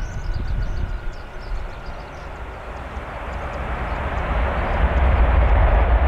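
Boeing 767 jet engines on the runway after touchdown: a faint whine falling in pitch, then a broad roar building from about halfway through. Gusty wind rumbles on the microphone.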